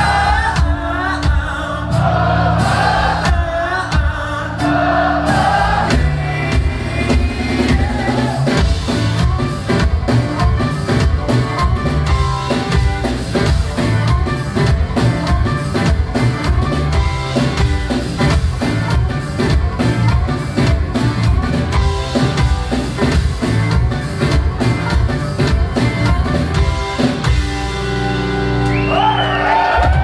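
Live band of bluegrass instruments (banjo, mandolin, acoustic guitar, upright bass) with a drum kit, playing a hard-driving rock song, sung for the first few seconds and then instrumental. It ends on a held final chord, with the crowd starting to cheer and whoop near the end.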